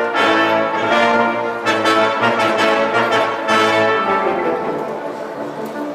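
School wind band playing a concert overture: full, brass-led sustained chords with fresh attacks about every second, easing into a softer passage about four seconds in.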